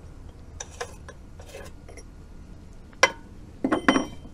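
Small metal parts and tools being handled on a wooden table. There is some light scraping, then a sharp click about three seconds in, followed by a quick run of ringing metal clinks near the end.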